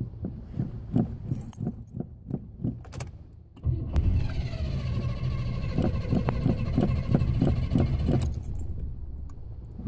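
Car engine being cranked on a hard start: the starter whines and churns the engine for about four and a half seconds, with uneven low pulses from the engine before and after the cranking.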